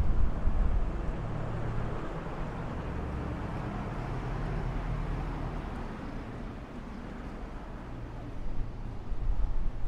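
Street traffic: cars driving past on a city street, a steady low rumble of engines and tyres that swells at the start and again near the end.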